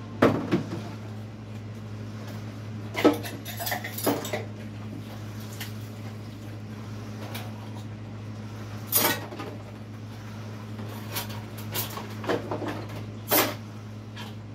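Dishes and cutlery clinking and clattering in a kitchen sink during hand washing: a handful of sharp, irregular knocks, with a steady low hum underneath.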